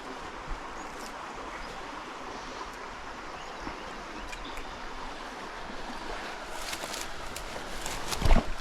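Creek water running steadily, with a few faint clicks. Near the end come louder knocks and rustling, the loudest a single thump about eight seconds in.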